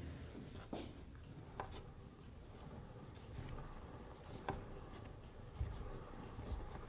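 Faint handling noises: a few soft clicks and light rubbing as a mesh waste-paper bin is turned by hand on a table.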